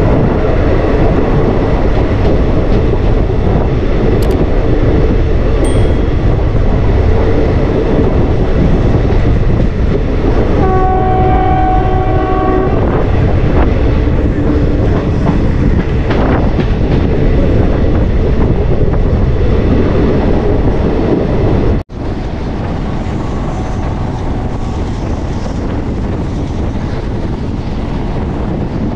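Diesel-hauled passenger train running along the track, with a steady rumble of the coach on the rails. About eleven seconds in, the locomotive horn sounds one blast lasting about two seconds. About twenty-two seconds in, the sound cuts out for an instant and returns a little quieter.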